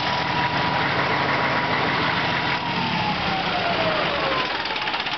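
Caterpillar 225 kW diesel generator set's engine running. About two and a half seconds in, a whine starts falling in pitch as the engine slows, and near the end its firing breaks into separate, evenly spaced pulses as it winds down from idle.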